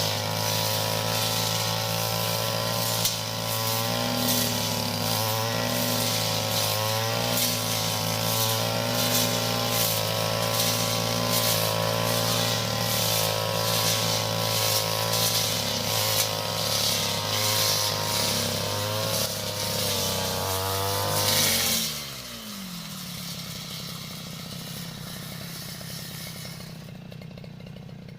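Brush cutter engine running at high revs as its long blade cuts grass, the pitch dipping briefly a few times under load. About 21 seconds in the throttle is released and the engine winds down with a falling pitch to a quieter idle.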